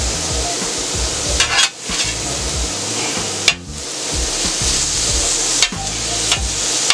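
Diced chicken frying with a steady sizzle on a hot steel flat-top griddle while a metal spatula scrapes under it and turns it, with a few sharp scrapes of the spatula on the steel.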